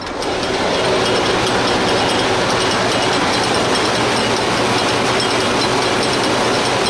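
A combine unloading barley into the dump body of a truck: a steady, dense rattle of grain streaming out of the unloading auger and hitting the truck's body. It starts abruptly.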